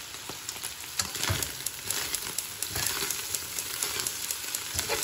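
Dried lotia fish (Bombay duck) sizzling as it fries in oil in a nonstick pan, stirred with a metal fork that clicks and scrapes against the pan. The sizzle gets a little busier about a second in.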